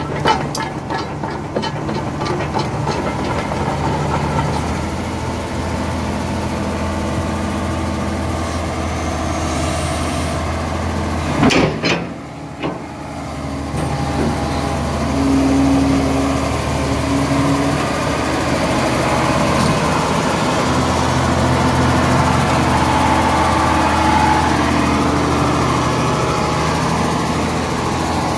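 Hitachi EX400H hydraulic excavator's diesel engine running steadily at idle, with a brief loud noise about twelve seconds in. Higher steady tones come and go over the engine in the second half as the boom and bucket are worked.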